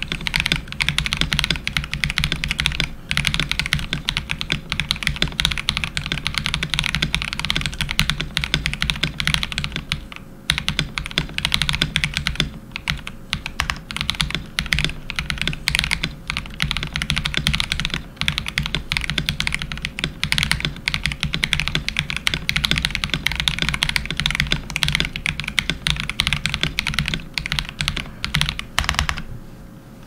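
Fast, continuous typing on a KBD67 Lite mechanical keyboard with KTT Chalk linear switches (polycarbonate top, nylon bottom housing), PBT keycaps, a polycarbonate plate, plate silicone and case foam. There is a short pause about ten seconds in, and the typing stops about a second before the end.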